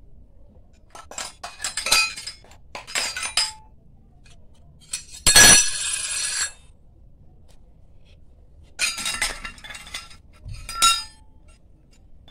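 Small stainless-steel miniature dishes and a lid clinking against each other in short clusters. About five seconds in comes one louder clang that rings for about a second.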